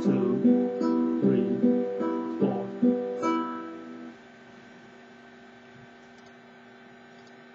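Classical guitar's open third, second and first strings (G, B, E) plucked in turn as a repeating triplet, about a note every 0.4 s. The playing stops a little over 3 s in, the last notes ring for about a second and then stop abruptly, leaving a faint steady hum.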